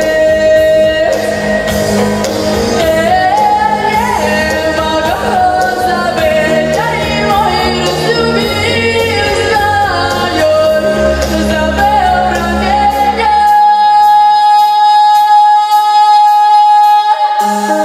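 Girl singing a Russian pop song into a handheld microphone over a backing track with bass and beat. Near the end the bass and beat drop away while she holds one long high note, and the backing comes back in just before the end.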